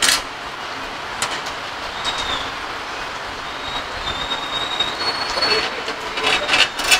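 Steady hiss of heavy rain, heard through a microphone tucked inside clothing. A few sharp clicks and knocks from screws and metal mounting parts being handled sound over it, loudest in a cluster near the end.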